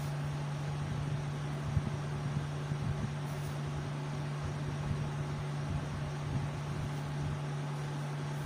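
Steady low hum over an even background hiss, with a few faint knocks, one just under two seconds in.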